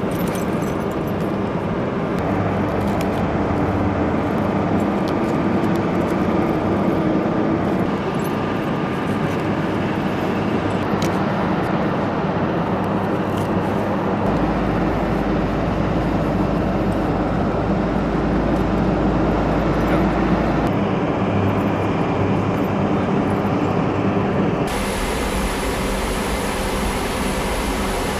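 Aircraft engines of a C-130J Super Hercules running: a steady drone with a hum. The sound shifts abruptly a few times, and near the end it is heard from inside the cockpit.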